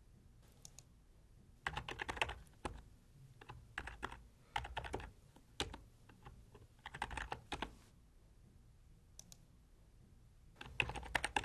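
Typing on a computer keyboard in short bursts of keystrokes, with pauses of about a second between bursts.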